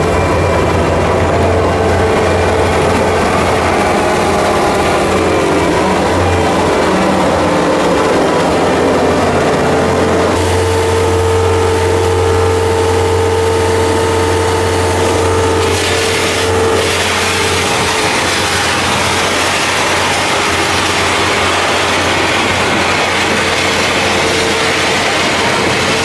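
John Deere 325G compact track loader's diesel engine running steadily while it plows snow, with a steady whine over the engine hum.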